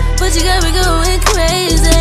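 Song with a sung vocal line over heavy, steady bass and percussion hits.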